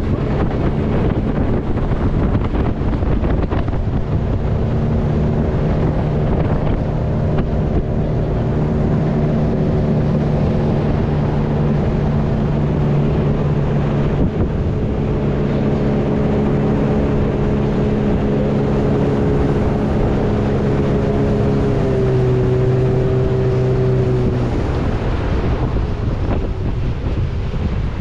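Motorboat engine running steadily, with wind on the microphone. About 22 seconds in the engine note drops lower, and a couple of seconds later its tone fades out, leaving a rushing noise.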